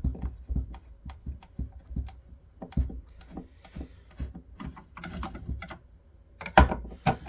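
Irregular clicks and light knocks from a screwdriver and hands working the subwoofer cabinet, taking out the screws under its feet, with one louder knock near the end.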